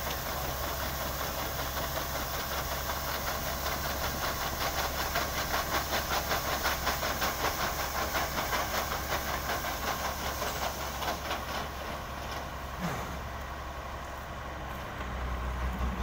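New Holland combine harvester running while unloading wheat through its auger: a steady hiss of pouring grain over the low drone of the engine. A fast, regular pulsing runs through the middle, and the hiss thins toward the end as the grain stream stops.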